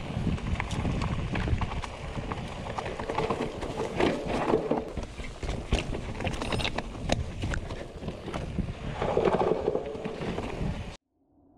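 Mountain bike descending a rough trail: tyres rumbling over rocks and dirt while the bike rattles and knocks, with wind on the microphone. It cuts off suddenly near the end.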